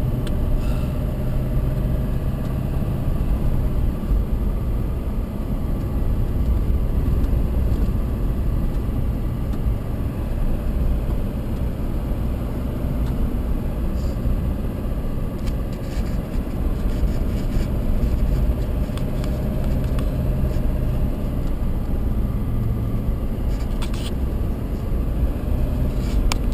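Vehicle driving on a gravel road: a steady engine drone over a continuous rumble of tyres on gravel, with a few light ticks partway through and near the end.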